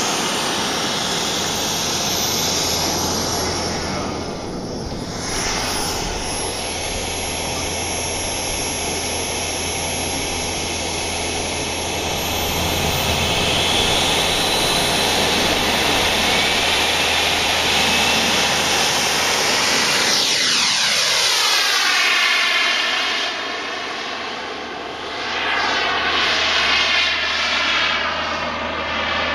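A radio-controlled Shok Jet model jet's engine running hard as the model rolls down the runway and climbs away, a steady rushing whine. A thin high whistle rides over it for the first dozen seconds. From about twenty seconds in, the sound sweeps and wavers as the jet flies past overhead.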